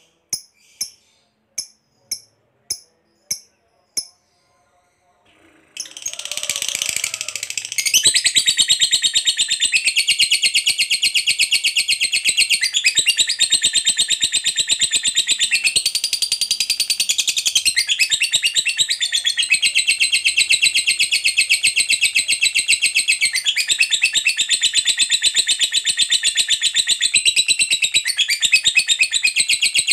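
A lovebird calling: first about seven short, sharp calls spaced about half a second apart, then after a short pause a long, unbroken, very rapid chattering trill that starts about six seconds in and runs on. This is the 'ngekek panjang' long chatter that keepers prize in an in-form fighter lovebird.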